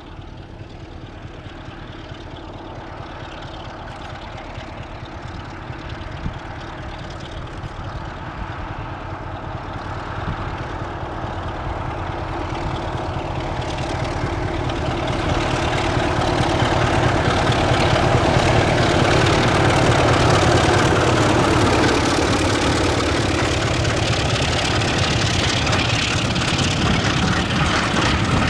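BR Class 33 diesel locomotive 33053 approaching with a passenger train, its Sulzer eight-cylinder engine working and growing steadily louder until the locomotive passes about two-thirds of the way in. The coaches then run past on the rails.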